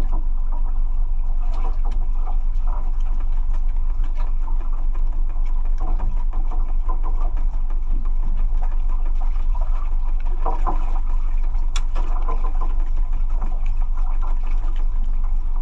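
A small boat's engine running steadily, a loud low drone with faint clicks and knocks over it.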